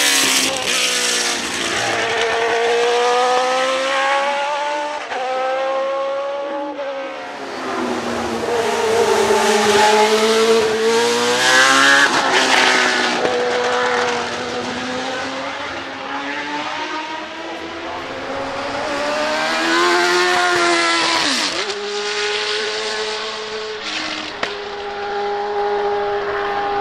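Judd EV 3.5-litre V8 of a Leyton House March Formula One car revving hard on a hillclimb run. The engine pitch climbs and falls sharply again and again as the gears change up and down, over several separate passes.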